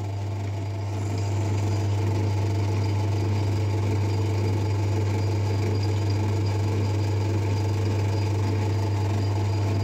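Hercus 9A lathe running steadily with its chuck spinning, a ball-bearing roller pressed against the face of the spinning part to push it true in the chuck. A constant hum with a faint high whine that comes in about a second in.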